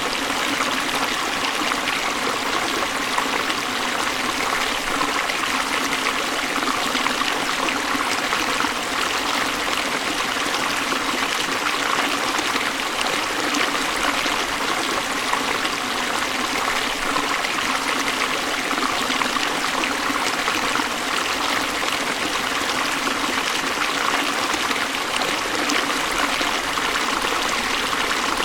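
River water running over falls: a steady, unbroken rush of water that holds the same level throughout.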